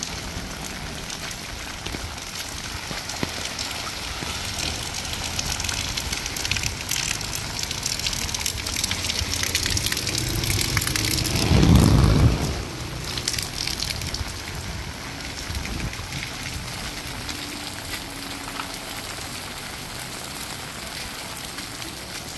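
Steady rain falling, with high-tide surf washing in and one loud surge of water about halfway through.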